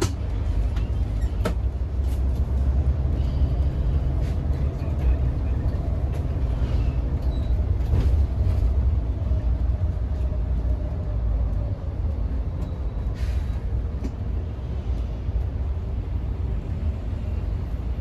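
Cabin noise inside a moving Mercedes-Benz O500R 1836 coach: a steady low rumble of engine and road, with scattered rattles and clicks, and a short hiss about thirteen seconds in.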